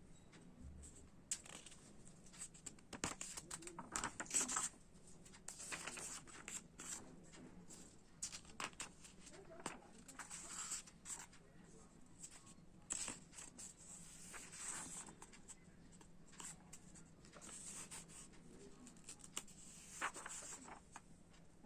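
Parcel packaging being handled and opened: irregular rustling, crinkling and tearing, in short bursts.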